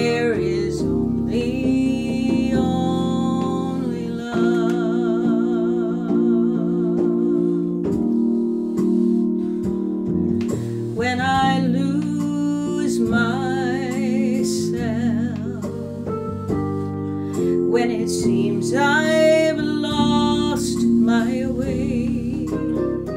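A woman singing a slow song with vibrato, accompanied by an electronic keyboard playing held chords.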